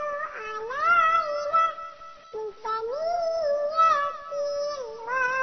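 High-pitched, electronically altered singing voice performing a sholawat melody in long, gliding held notes, with a short break about two seconds in.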